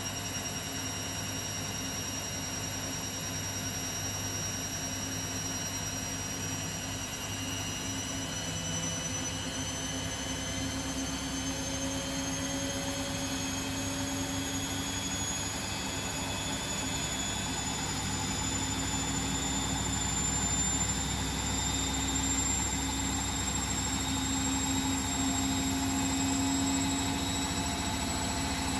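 Beko WML 51211 EL+ front-loading washing machine spinning up: a steady motor hum with a high whine that slowly rises in pitch as the drum speeds up, growing a little louder toward the end.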